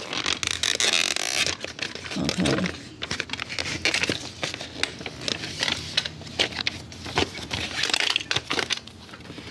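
Packaging being handled inside a cardboard shipping box: packing paper crinkles and rustles, and cardboard gives off many small, irregular crackles and knocks.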